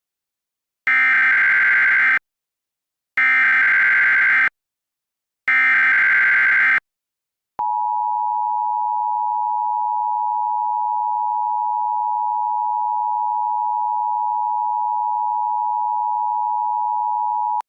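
Emergency Alert System tones starting a US alert. First come three SAME header data bursts, harsh warbling screeches of about a second each, evenly spaced. Then the steady two-tone EAS attention signal holds unchanged for about ten seconds.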